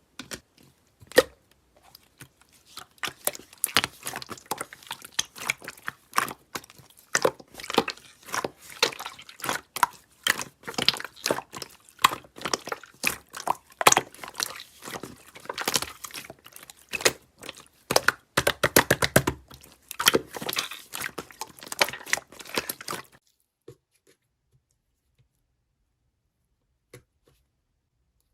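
Slime being squeezed, poked and stretched by hand, giving a dense run of wet clicks and squelching crackles that stops suddenly near the end.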